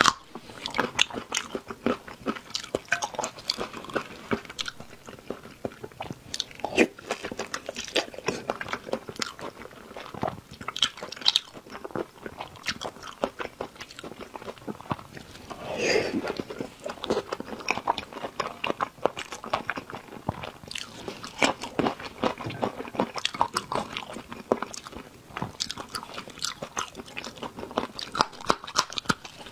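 Close-miked mouth sounds of a person biting and chewing food, a dense run of sharp wet clicks and smacks, with one longer, louder sound about halfway through.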